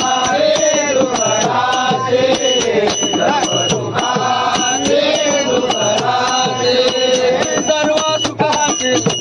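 Marathi devotional abhang sung by a local-train bhajan group, a held, winding vocal melody over a steady percussion beat.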